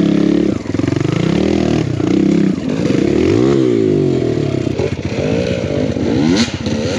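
Kawasaki KLX140 dirt bike with a 170cc big bore kit, its single-cylinder four-stroke engine revving up and dropping back several times as it works along a rough trail. There are a couple of sharp clacks near the end.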